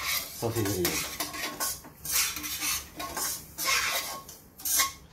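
Slotted metal spatula scraping and stirring dry semolina (rava) around a stainless steel kadai as it is dry-roasted, in repeated rasping strokes about one a second with a sandy hiss of the grains.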